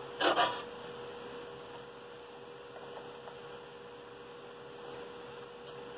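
Steady hum, with a brief rustling noise about a quarter second in.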